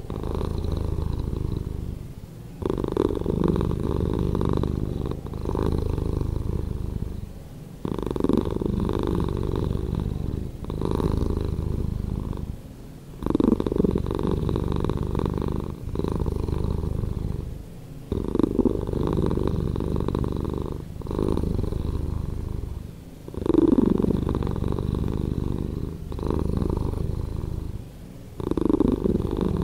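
Domestic cat purring, slowed down in editing: a low, steady purr that swells and dips with the cat's breathing, with a short pause about every two and a half seconds.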